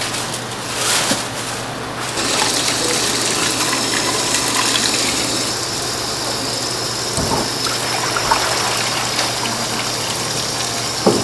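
Kitchen tap water running into a steel bowl of raw pork hocks in a stainless steel sink, splashing over the meat as it is rinsed. The flow gets louder about two seconds in.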